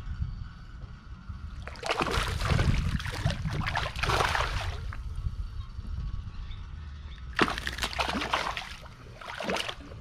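Water splashing and sloshing in two bouts, about two seconds in for some three seconds and again for about two seconds near the end, over a steady low rumble.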